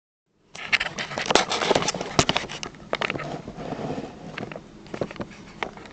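Handling noise from a camera being set up on a dining table: a quick run of clicks, knocks and rustling starting about half a second in, thinning to a few scattered knocks in the second half.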